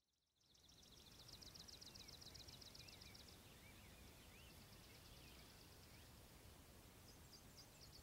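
Faint countryside ambience fading in about half a second in: a rapid, evenly pulsed high trill of insects with a few short chirping bird calls over a soft hiss.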